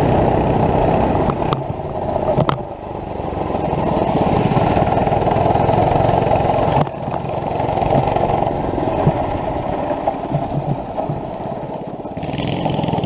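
Small gas engine of a ridden go-kart-style vehicle running under throttle along a rough dirt and grass track. It drops off briefly about two and a half seconds in and again near seven seconds, then picks back up, with a few knocks and rattles.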